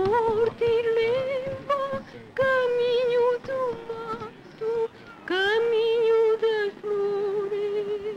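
A woman singing a series of long, high held notes with vibrato, broken into short phrases. About five seconds in, one note swoops up into place.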